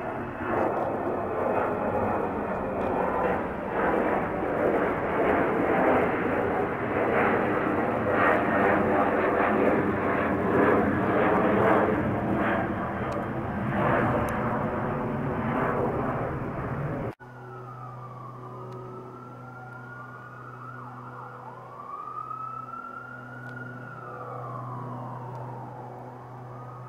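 Jet aircraft passing low overhead at night: a loud, rough jet roar with crackle. It cuts off abruptly about two-thirds of the way through, and a quieter scene follows: a distant siren wailing up and down over a steady low hum.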